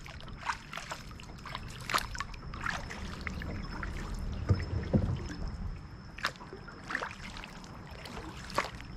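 Small kayak moving through the water: irregular splashes and drips, with sharp knocks now and then, over a steady low rumble. A thin, steady high tone runs behind it.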